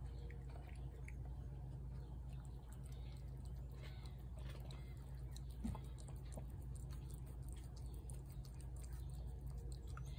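A cat eating wet cat food: faint chewing and licking clicks, over a steady low hum, with one soft thump a little past halfway.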